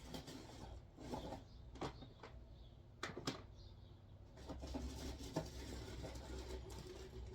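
Faint, scattered clicks and knocks of small hardware and containers being handled while rummaging through shop bins for nails. A low rumble joins about halfway through.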